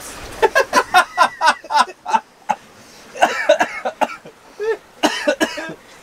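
Laughter: a run of rapid, rhythmic ha-ha pulses in the first couple of seconds, then two shorter bursts of laughing.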